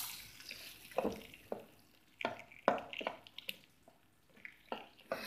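Hot oil tempering hissing on coconut chutney, dying away within the first half-second. Then a spoon stirring the chutney in a steel bowl: a string of short, wet squelches and scrapes, about one or two a second.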